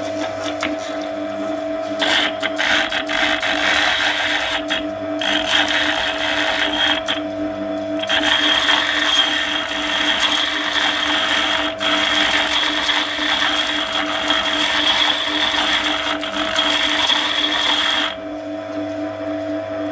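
Electric grinder motor running with a steady whine while a drill bit clamped in a sharpening jig is ground against its stone, putting a facet on the bit's point. The rasping grind starts about two seconds in, breaks off briefly twice, and stops about two seconds before the end while the motor keeps running.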